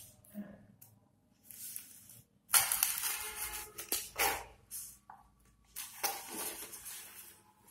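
Kitchen knife slicing through a stack of folded dong leaves on a plastic cutting board, with crisp leaf rustling: several separate cutting and handling strokes, the loudest about two and a half seconds in.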